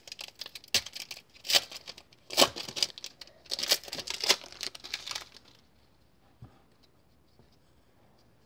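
A 2017 Panini Score football card pack wrapper being torn open and crinkled by hand: a dense run of crackling and ripping for about five seconds, then near quiet with one soft tap.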